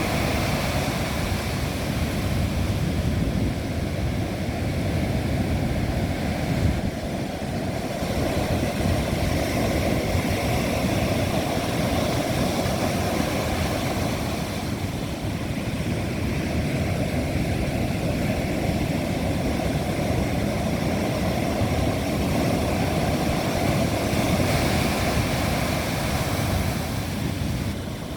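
Strong wind rumbling on the microphone over heavy Atlantic surf, a dense steady noise that swells and eases every several seconds as waves break.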